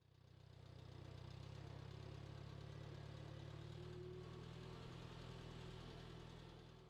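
An engine idling steadily, fading in at the start and fading out near the end.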